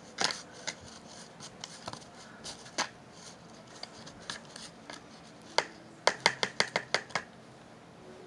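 Paint stick stirring slime in a bowl: scattered scrapes and clicks, then a quick run of about eight sharp clicks near the end.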